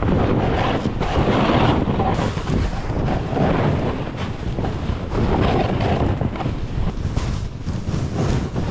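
Wind buffeting the microphone in a loud rush, swelling and dropping about every second or so.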